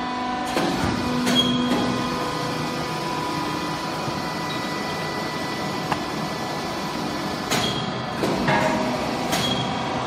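Household baler's motor running with a steady hum, with a few knocks and clatters in the first two seconds and again near the end.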